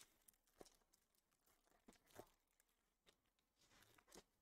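Near silence, broken by a few faint, short ticks and rustles of trading cards being handled and flipped through by hand.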